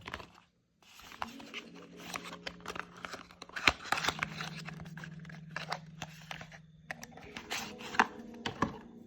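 Skincare product packaging being unboxed by hand: wrapping and cardboard tearing and crinkling, with sharp clicks and taps, the loudest a little under four seconds in and again around eight seconds. A steady low hum runs underneath.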